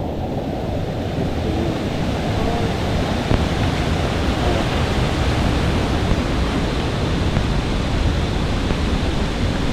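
Steady rush of water pouring over a waterfall, the sound filling out in the first second and then holding unbroken.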